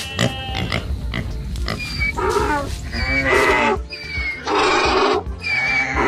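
Animal call sound effects, three short calls about two, three and four and a half seconds in, over background music.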